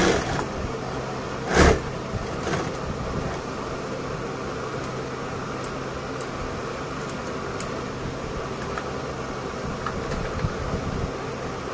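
Steady mechanical hum running throughout, with one sharp thump about a second and a half in, a softer one soon after, and a few faint ticks later on.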